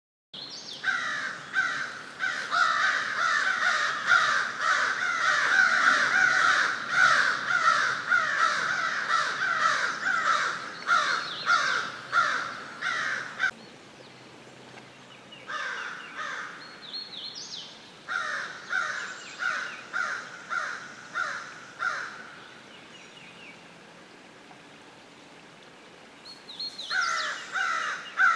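Several crows cawing in rapid, overlapping series, dense for about the first half, then in shorter bursts with pauses between and another burst near the end.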